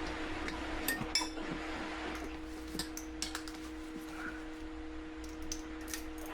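Scattered light metallic clinks and taps of a hand wrench against the wheel as it is fitted onto the rusted 12 mm valve-stem nut, over a steady electrical hum.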